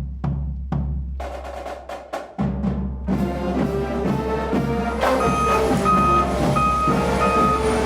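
Drum-heavy music with loud single hits and a fast drum roll. About five seconds in, a vehicle's reversing alarm joins it, beeping steadily about one and a half times a second.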